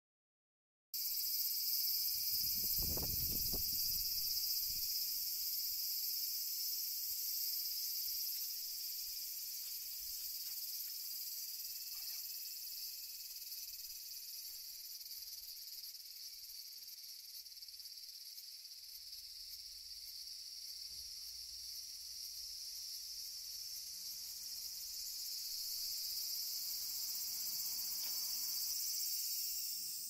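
A steady, high-pitched insect chorus that cuts in about a second in, with a brief low rumble a couple of seconds later.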